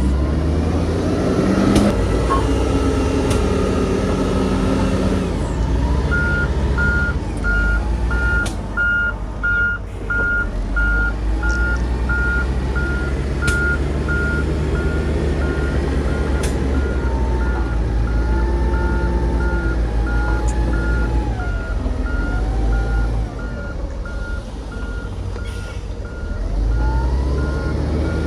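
Heavy diesel earthmoving machinery running, with a reversing alarm beeping at an even pace from about six seconds in.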